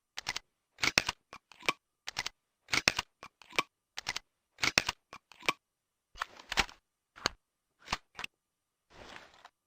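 Mechanism of a Nagant M1895 revolver clicking: short clusters of sharp clicks about once a second, then a brief rasping rustle near the end.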